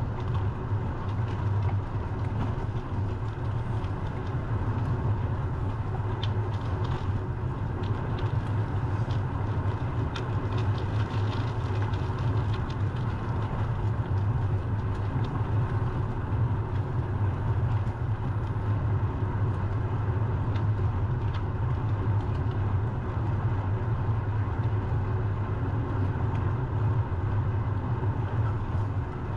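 Steady low rumble of wind and road noise on a GoPro's microphone during a bicycle ride.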